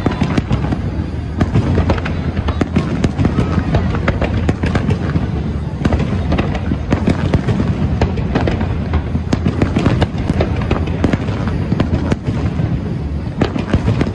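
Aerial firework shells bursting in a dense barrage, many bangs in quick succession over a continuous low rumble, with no let-up.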